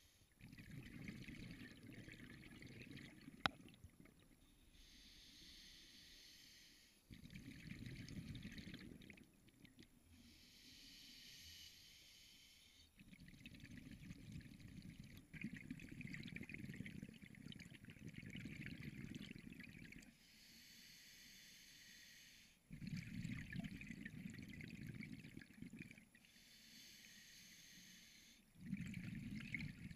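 Scuba diver breathing through a regulator underwater: a hiss from the demand valve on each inhalation alternates with a bubbling rumble of exhaled air, over several breath cycles. A single sharp click about three and a half seconds in.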